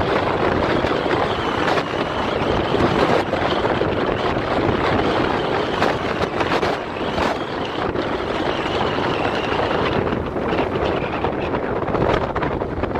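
Wind buffeting the microphone and road rush while riding a Niu M+ Sport electric scooter at a steady cruise of about 45 km/h, with a faint high whine coming and going.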